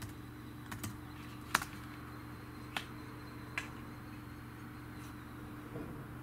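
A handful of light, isolated clicks over a steady low hum, the sharpest about one and a half seconds in.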